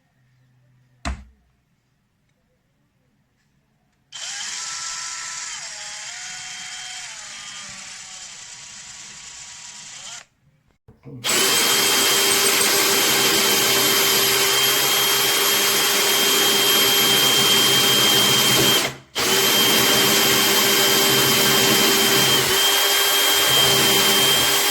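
Bosch Professional GSB 18V-55 cordless combi drill running. There is a single click about a second in, then a shorter, quieter run whose motor pitch shifts up and down. Then come two long, loud runs with a steady whine, split by a brief stop, as the drill bores into tile.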